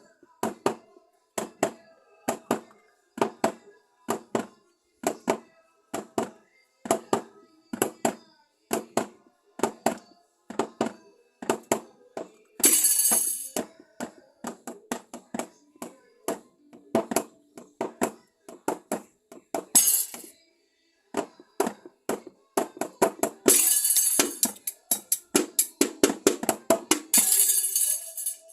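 Drum kit played in a steady beat of sharp strikes, with cymbal crashes about halfway through and several heavier crash-filled passages near the end.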